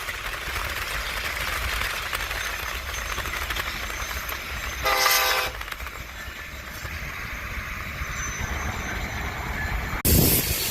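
Steady rushing noise, with one short horn blast about halfway through, held on a single pitch. Near the end the sound cuts abruptly to a louder, low rumble.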